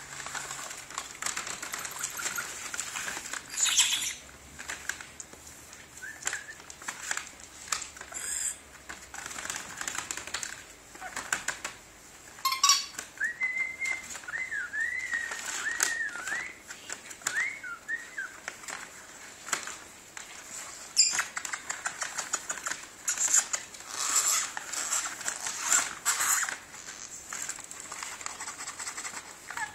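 Blue-streaked lory rustling and crinkling the paper bag it is playing inside, with several louder scuffles. Midway through, the bird gives a run of short whistled chirps.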